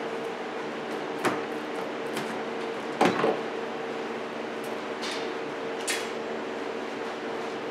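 A few sharp clicks and knocks, the loudest about three seconds in, from plastic trim clips being pried out with a small screwdriver and the plastic cowl cover being handled. A steady hum runs underneath.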